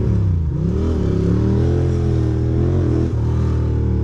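2006 Ducati Monster 620's air-cooled L-twin engine heard from the rider's seat, its revs dipping and rising with the throttle in slow traffic. The note settles to a steady pitch about three seconds in.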